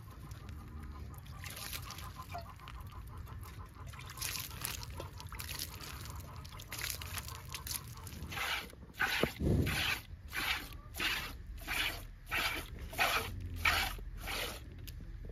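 A cow being milked by hand, with milk squirting into a pail in short hissing strokes. The strokes are faint at first, then from about eight seconds in become loud and regular, about two a second. One dull thump comes about nine and a half seconds in.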